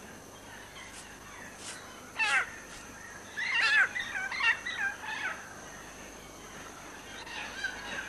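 Megapode calls: one short call about two seconds in, then a run of wavering calls that bend up and down in pitch, lasting about two seconds.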